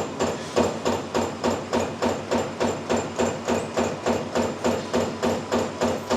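Prima Power Shear Genius SG1530 servo-electric CNC turret punch hitting sheet metal in a steady rapid rhythm, about three sharp punch strokes a second.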